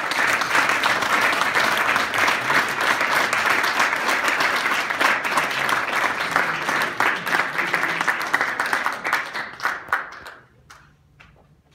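Audience applauding: many hands clapping in a dense, steady patter that dies away about ten seconds in, leaving a few last claps.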